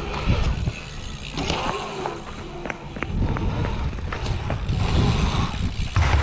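Wind rushing over the microphone of a camera moving along a pumptrack, with the rumble of mountain-bike tyres rolling on asphalt and scattered clicks and knocks from the bikes.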